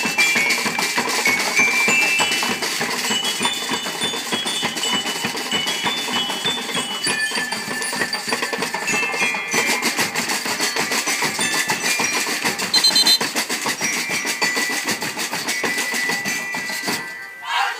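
Marching band drumline playing rapid snare-drum patterns, with a high, bell-like melody on top. The music breaks off near the end and voices start shouting.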